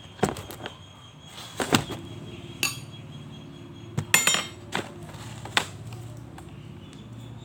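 Eating utensil clinking against a plate or bowl during a meal: about half a dozen sharp clinks spread out, a couple of them ringing briefly.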